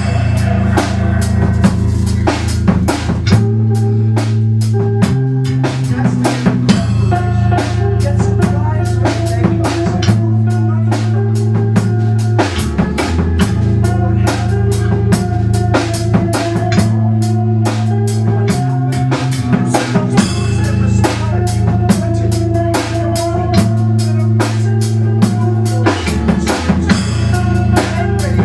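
Music with a drum kit playing a steady beat of kick, snare and cymbals over a bass line that repeats a short pattern of low notes.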